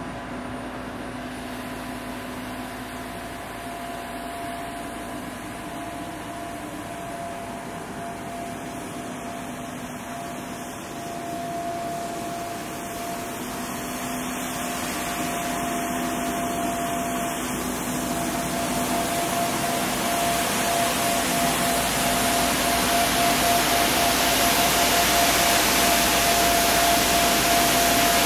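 Street sweeper running: a steady whining hum with a rushing, vacuum-like hiss that grows steadily louder and brighter as the machine draws closer.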